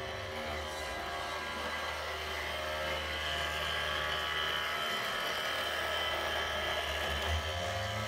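Small electric motors of radio-controlled model machinery whining steadily, with a low hum beneath that swells a little in the middle.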